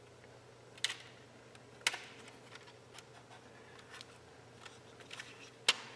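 Small sharp clicks of TIPM parts being fitted together by hand: stacked metal trace layers and plastic housing going onto the pins. Three louder clicks, about a second in, about two seconds in and near the end, with fainter ticks between.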